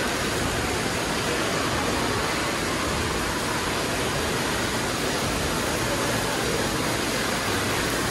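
Steady, even background noise of an indoor water park hall, from running water and the hall's ventilation, with no distinct events.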